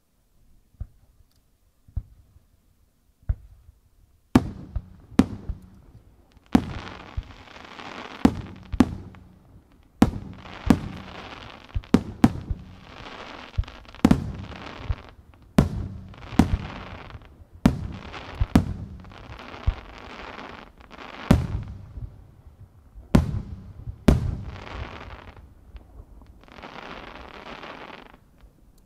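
Aerial firework shells bursting in quick succession: a few fainter bangs at first, then sharp loud bangs about once a second, with crackling and hiss from the burning stars filling the gaps between them. Near the end the crackle goes on without a bang.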